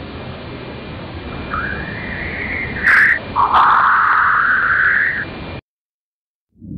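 Voyager plasma-wave recording of Jovian upstream ion acoustic waves, played back as sound: a steady hiss with whistling tones that rise in pitch, the loudest one from about halfway in. A short burst comes about three seconds in, and the recording cuts off suddenly near the end.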